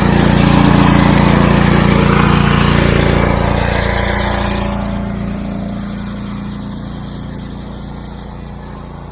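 A small engine running steadily, loud at first and growing gradually fainter from about three seconds in.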